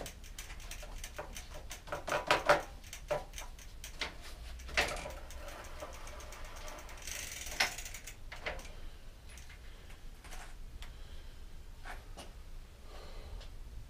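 Dutch bicycle's rear hub ticking as the wheel turns in a repair stand, fast even ticks for the first couple of seconds. Then come several sharp knocks around two to three seconds in and again near five and seven and a half seconds, with a short hiss near seven seconds, as the wheel and hub are worked on by hand.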